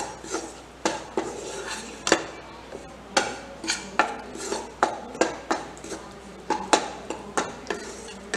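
Metal spatula scraping and knocking against a kadhai while stirring flour roasting in ghee, in irregular strokes about two a second.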